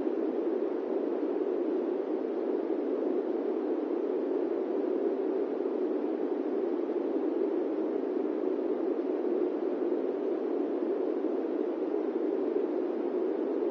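Electric fan running: a steady, low rush of air noise with no change in level or pitch.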